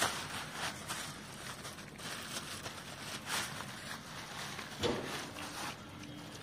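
Scattered rustling and soft knocks of rhesus macaques moving through dry brush while they eat watermelon pieces.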